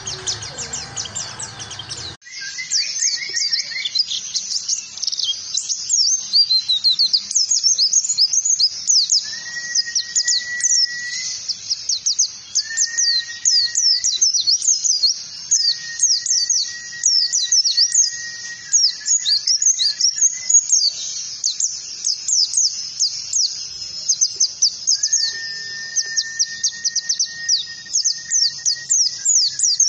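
White-eye (pleci) song: a fast, unbroken, high-pitched twittering, with long level whistled notes at a lower pitch coming in four times and each held for a second or more.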